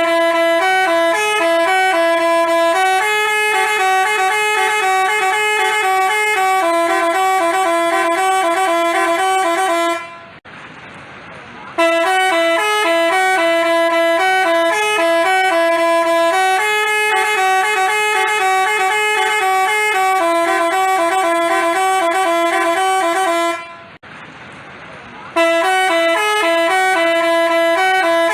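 Telolet Basuri multi-tone bus horn playing a stepping melody of held, chord-like notes. It cuts out for about a second and a half twice, about ten seconds in and again near the twenty-fourth second, then starts the tune over.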